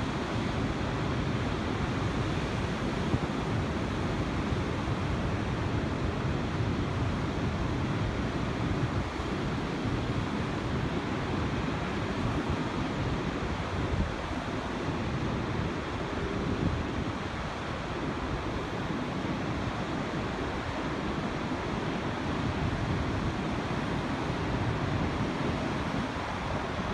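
Heavy surf breaking along the shore, a steady wash of noise, with wind buffeting the microphone.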